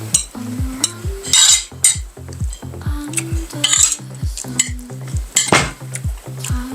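Background music with a steady bass beat of falling-pitch bass strokes, about three a second, over spoons scraping and clinking on plates of rice, with a few louder scrapes.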